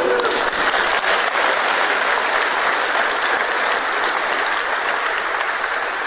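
Audience applauding, a dense round of clapping that eases slightly near the end.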